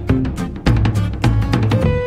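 Background music with a steady drum beat under bass and pitched instrument notes.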